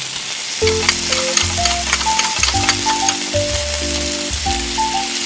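Shredded crab stick and chopped onion sizzling in hot oil in a tiny pot, a steady hiss full of small crackles. A simple tune with bass notes plays over it.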